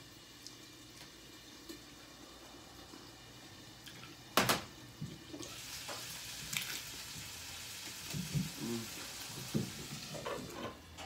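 Crisp hard taco shell cracking in a bite about four seconds in, then chewing, over a steady hiss that lasts about five seconds.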